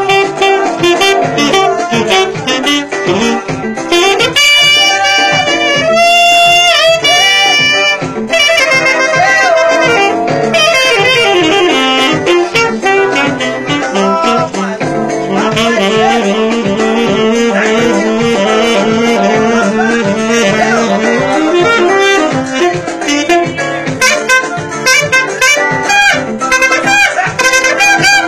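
Saxophone playing a lively melody, live in the room, over a backing track with a steady beat.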